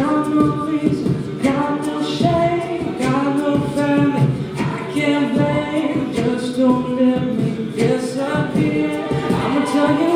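A cappella group singing in harmony: several voices holding and shifting chords, with a steady vocal-percussion beat running under them.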